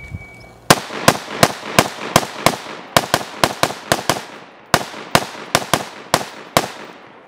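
A shot timer's start beep ends, then an AR-style carbine fires 18 rapid shots, about three a second, with one slightly longer pause partway through. This is a timed 18-round drill against a 12-second par time.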